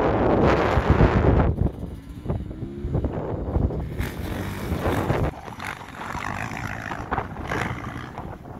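Small motocross dirt bike engine revving up and down as it rides, its pitch rising and falling. Heavy wind buffeting on the microphone covers the first second or so.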